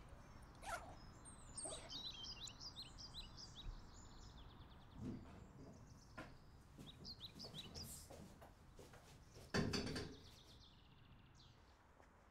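Small birds chirping on and off, and about three-quarters of the way through a single brief thud, the loudest sound, which fits the stainless-steel door of an automatic public toilet shutting.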